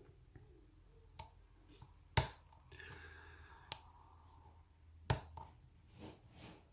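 Lock pick and tension wrench clicking in a Ruko challenge lock, single-pin picking: a handful of separate sharp clicks, the loudest about two seconds in, with a faint scratchy rasp of the pick in the keyway around the middle.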